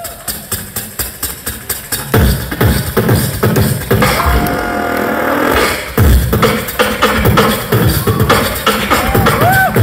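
A solo beatboxer performing into a handheld microphone: quick clicking sounds at first, then heavy bass-drum kicks come in about two seconds in. Around the middle the beat pauses for a held hummed note, then the rhythm returns with short rising vocal sweeps near the end.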